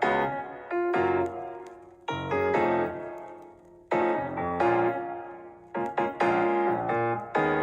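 Background piano music: chords struck and left to fade, in short phrases.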